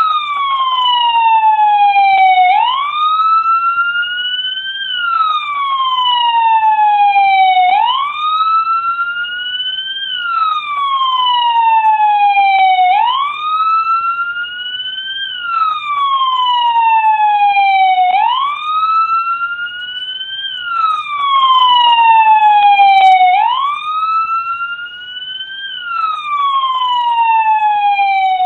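American police car siren in wail mode: one loud tone sweeping slowly up and then down, a full rise and fall about every five seconds, repeating without break.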